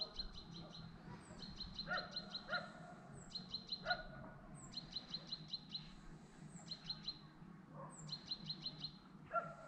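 A small songbird singing faintly, repeating a short phrase about six times: each phrase is a high falling note followed by a quick run of chirps. A few lower calls sound in between, and a steady low hum runs underneath.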